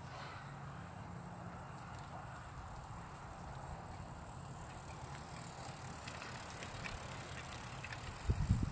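BMX bike towing a two-wheeled pet trailer, rolling over a concrete street as it comes closer, over a steady low rumble. There are a few faint ticks as it nears, and a brief louder low thump near the end as it passes close.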